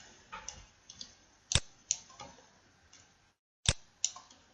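Computer mouse clicking: a few scattered sharp clicks, with two louder pairs about a second and a half in and near the end. The sound drops out completely for a moment just before the second pair.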